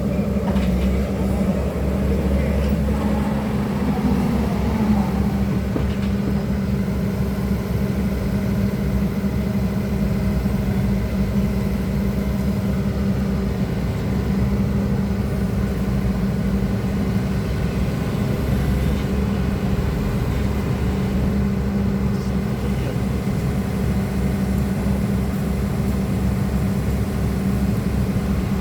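Excavator's diesel engine running steadily, with a brief rise in pitch about four seconds in.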